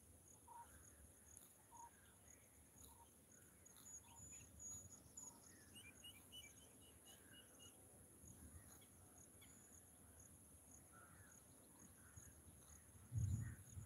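Faint insect chorus: a steady high-pitched buzz with pulsing chirps. Birds call over it, one repeating a short note every second or so, with a run of quick chirps about six seconds in. A couple of low thumps near the end.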